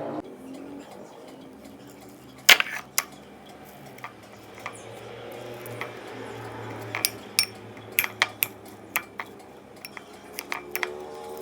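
Kitchen utensils clinking against dishes: one sharp clink about two and a half seconds in and two more just after, then a run of lighter clinks and taps in the last four seconds.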